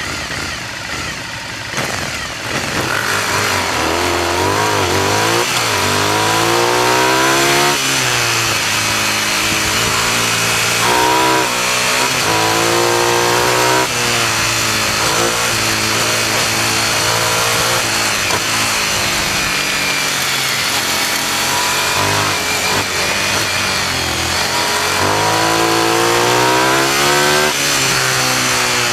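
Motorcycle engine at speed, heard from a fork-mounted camera, revving hard through the gears: its pitch climbs and drops back at each upshift, several times, over a steady rush of wind and road noise.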